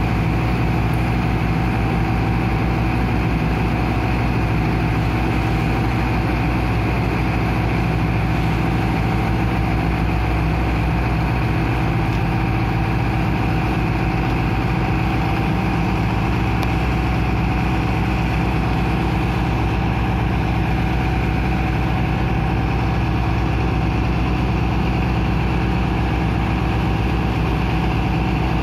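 Engine of a sand-unloading dredger pump running steadily, an unchanging drone with a constant low hum.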